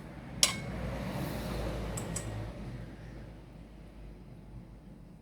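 A single sharp clink of a dish or utensil, then soft handling noise that fades away, with a couple of faint ticks.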